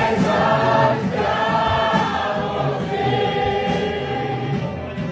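A choir singing a hymn in held, sustained chords, moving from one chord to the next in slow phrases.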